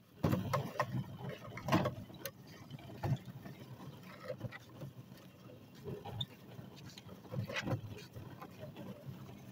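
Hoover spin sweeper, a push-type outdoor sweeper clogged with grass clippings, being worked on a driveway: a continuous rattle and clatter of its housing, wheels and brush roll, with scattered knocks throughout.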